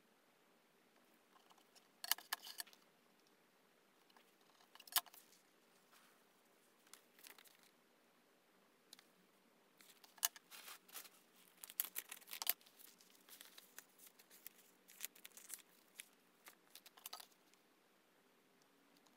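Faint, scattered clicks, taps and paper rustles as a steel ruler, a pen and sheets of paper are handled on a tabletop. The sounds are sparse at first and cluster more densely about halfway through.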